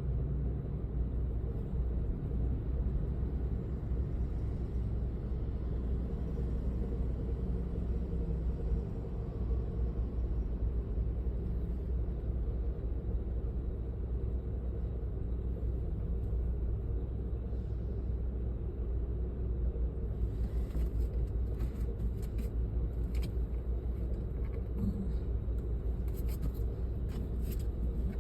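Car running with a steady low rumble. A few light clicks come over it in the last several seconds.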